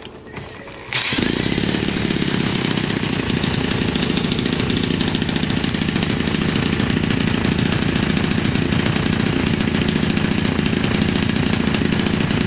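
US Engines 41 cc two-stroke engine, converted for RC airplane use and driving an 18x10 propeller, comes in abruptly about a second in and then runs loud and steady.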